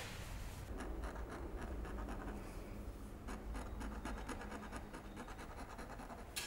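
Fine, rapid scratching of a scalpel on the surface of a painted canvas, in many short repeated strokes over a low steady hum.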